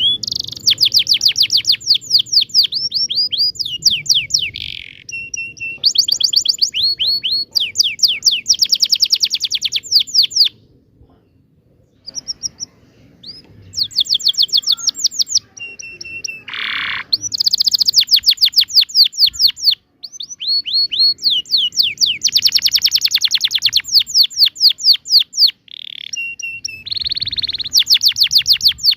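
Domestic canary singing a long song of rapid trills and rolling phrases, with a short pause about a third of the way in.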